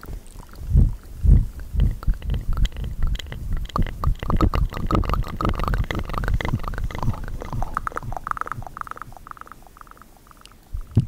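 3D ASMR mouth sounds: a rapid string of small clicks and pops from the lips and mouth, with a few low thuds near the start.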